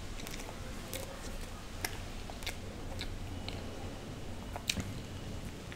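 Close-miked chewing of soft cake, with sharp wet mouth clicks and lip smacks about once a second.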